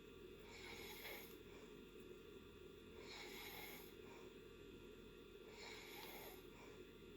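Faint snoring of a person in deep sleep: three airy, hissing breaths about two and a half seconds apart.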